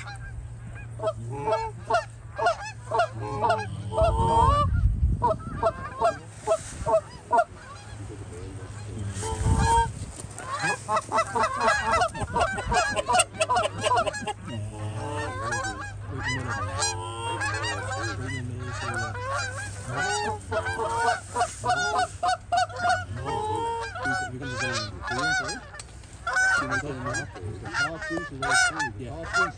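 A large flock of Canada geese honking, many calls overlapping without a break. Two low rumbles come through about four and ten seconds in.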